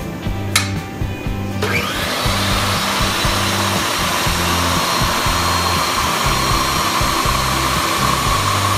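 Metal-cutting chop saw comes in about a second and a half in and cuts through square steel tubing with a steady, harsh grinding noise and a ringing edge. Background music with a steady bass beat plays underneath.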